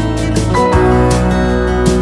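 Background music led by guitar, with held notes and a steady beat; the chord changes about two-thirds of a second in.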